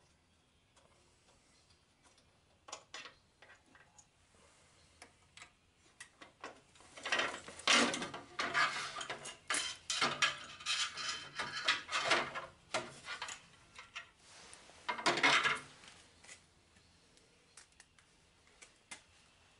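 Metal parts clattering and rattling as they are handled, with scattered clicks. It is quiet at first, then comes in a long busy spell in the middle, loudest at two points, before dying back to a few light clicks.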